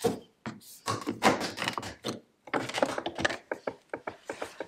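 Plastic makeup compacts clacking and knocking against each other and the plastic drawer dividers as they are rummaged through, ending in a fast run of light clicks.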